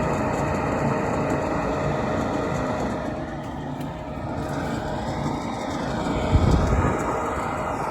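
Steady running noise of a 90% gas furnace's fan motor, with a constant hum, and a single low knock about six and a half seconds in.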